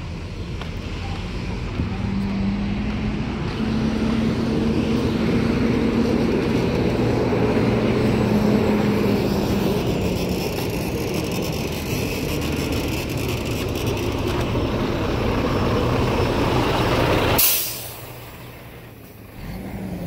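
Engine of a heavy road vehicle or construction machine running, a steady drone that swells about two seconds in and holds. It cuts off suddenly with a click near the end.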